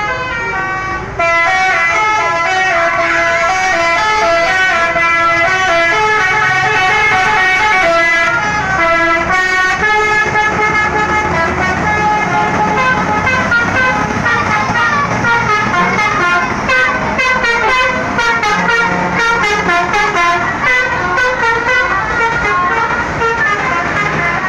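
Bus telolet horn, a Basuri V3 multi-tone musical horn, playing a loud stepping tune of horn notes. It jumps louder about a second in and changes to a quicker run of notes around ten seconds in, with a low engine hum underneath.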